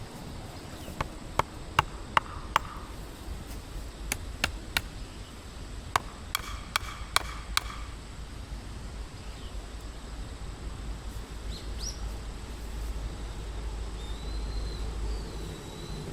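About a dozen sharp knocks in the first half, irregularly spaced, several of them ringing briefly. Later a bird gives a few wavering high chirps.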